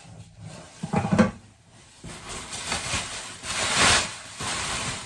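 Packaging rustling and scraping as a frying pan is handled and pulled out of a box, with a knock about a second in.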